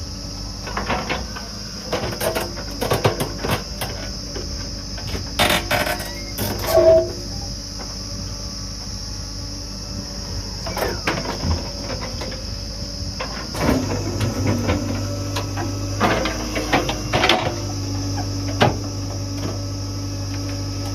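Steady high-pitched insect chirring throughout, with scattered knocks and clanks. A low engine hum comes in about two-thirds of the way through and holds steady.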